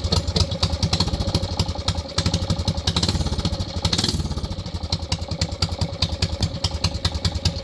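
Briggs & Stratton single-cylinder engine on a mini bike idling as low as it will go through a homemade exhaust, with a slight lope in its steady firing.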